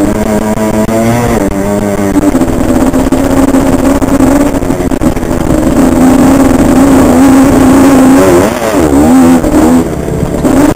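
Honda CR85 two-stroke single-cylinder dirt bike engine revving hard under way. It climbs through the revs, holds a high steady note, then its pitch swings rapidly up and down near the end.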